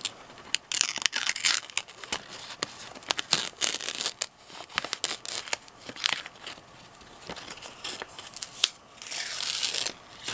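A sheet of paper being sliced against the edge of a knife of REX 121 steel freshly sharpened on a 400-grit oil-impregnated stone: crisp rustling and tearing in several strokes with small clicks, the longest stroke near the end. The easy slicing shows the edge is really sharp.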